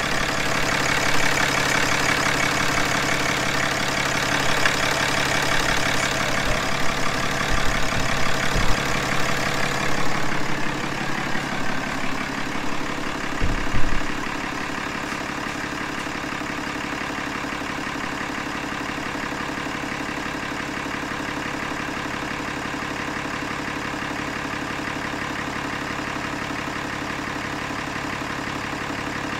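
Ram pickup's turbo-diesel engine idling steadily on fresh oil and a new filter, running smoothly. About halfway through there is a sharp bump, after which the idle sounds quieter and farther off.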